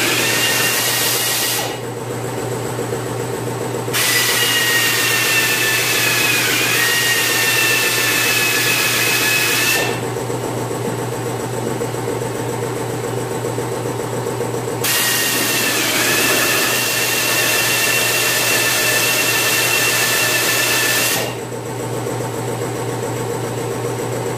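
Drill boring out spot welds in a steel cab pillar: a steady running whine that dips in pitch as the bit bites, with a loud hiss over it that cuts out and comes back three times.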